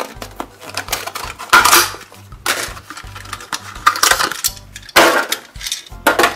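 Clear plastic blister packaging of a die-cast toy car crackling and snapping in several loud bursts as it is pulled open and the car is taken out.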